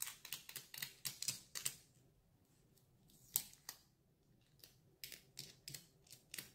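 A piece of Scotch tape dabbed again and again on the Galaxy Note 9's glass screen, each press and pull-off making a short sticky click. The clicks come in quick runs of several a second, with a near-silent gap of about two seconds in the middle broken by one sharper click.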